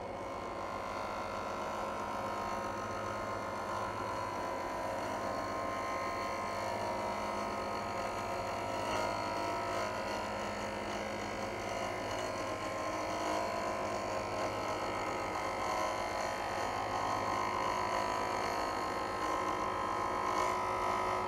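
Wood lathe running with a steady hum while a half-inch bowl gouge makes one very slow, continuous cut across a spinning pine blank.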